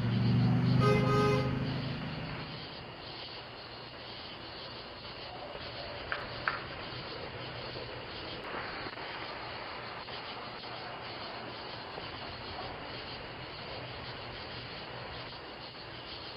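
A vehicle horn sounds once for about two seconds, followed by steady background hiss with two faint clicks about six seconds in.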